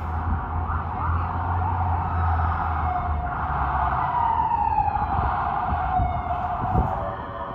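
R188 subway train on the elevated line, with a deep rumble in the first half and a whine that falls steadily in pitch a little past the middle.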